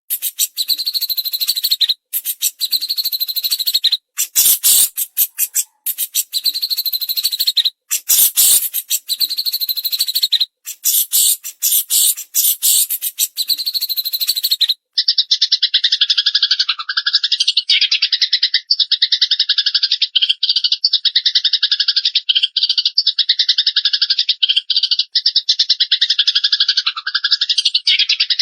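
Eurasian tree sparrow and cililin calls: a harsh, very fast chatter that reaches high up for the first half, then, about fifteen seconds in, a switch to a steady, rapid trill of repeated notes.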